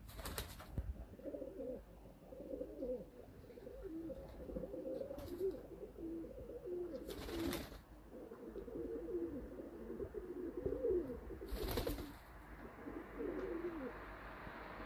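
Domestic pigeons cooing almost without a break, several birds' low rolling coos overlapping. A few brief rustling noises cut across them, the loudest about two-thirds of the way through.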